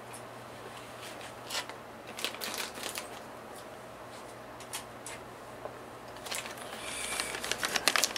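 Plastic parts bag being handled and opened: scattered crinkles and clicks that get busier near the end, over a faint steady low hum.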